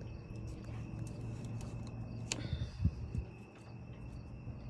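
A single sharp click about two seconds in as the string lights are switched on, followed by a couple of low thuds from handling. A steady high cricket trill runs underneath.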